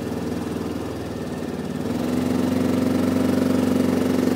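A vehicle engine runs at a steady speed, growing louder and fuller about two seconds in as it takes the strain of towing a stuck quad bike out of deep mud and water.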